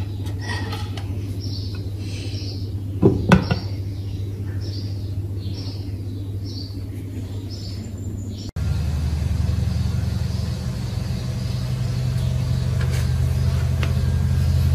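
Midea induction cooktop humming under a pot of water heating at power 1800, with two sharp knocks about three seconds in. Partway through the hum becomes louder and fuller and swells slightly as the covered water heats toward a boil.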